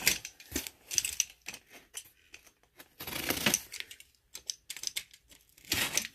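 Scattered clicks, taps and short scrapes from a heavy cardboard box being handled, with a box cutter being worked along its packing tape.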